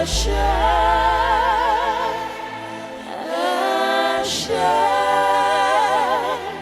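Live gospel worship singing: voices holding long notes with vibrato in two sung phrases over sustained low bass notes.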